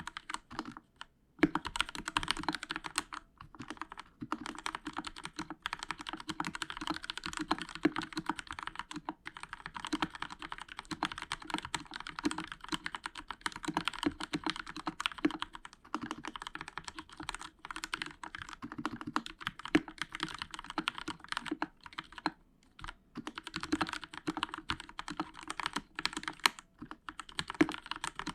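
Steady typing on a Royal Kludge RK61 60% mechanical keyboard with Outemu Red linear switches, foam under the PCB and lubed stabilizers: a fast, irregular stream of key clacks. It starts a little over a second in, with a couple of short pauses later on.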